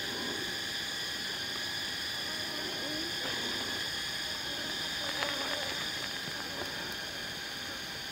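Steady high-pitched drone of forest insects such as cicadas and crickets, unchanging throughout, with a few light clicks about five seconds in.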